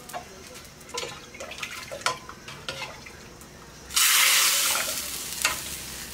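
Hot tempering pan of spices hisses sharply as a ladleful of liquid from the pressure cooker is poured into it, starting suddenly about four seconds in and dying away over a second or two. Before that, a few light clinks of a metal ladle against the pans.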